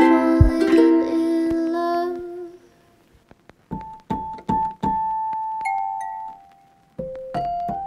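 Background piano music: held chords that fade out about two seconds in, a short pause, then single notes played slowly, each ringing on and dying away.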